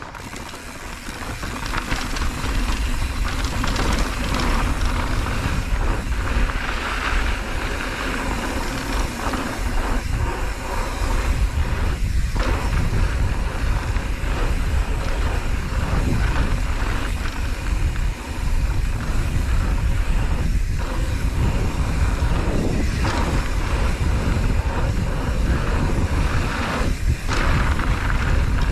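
Wind buffeting the microphone and knobby mountain-bike tyres rolling over dry dirt and loose gravel on a fast descent, growing louder over the first few seconds as speed builds. Occasional short knocks come from the bike hitting bumps.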